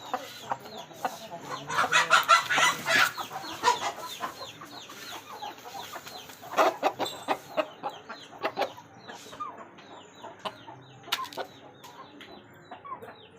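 Chickens clucking in many short, quick calls, busiest about two seconds in and again around seven seconds in.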